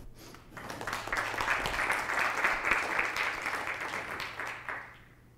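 Audience applauding: clapping swells about a second in, holds, and dies away near the end.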